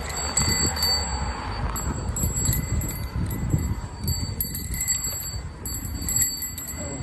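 Handlebar-mounted bicycle dome bell pinging irregularly, many times over, as the folding bike jolts along a rough dirt-and-gravel track, over a low rumble from the tyres on the loose surface.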